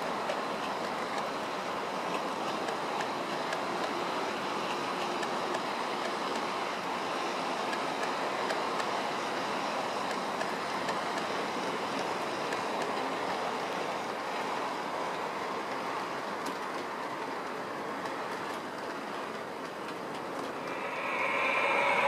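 Model train running round a curve of track, giving a steady running noise of wheels on the rails and the locomotive's motor. Near the end a louder sound with several steady tones comes in.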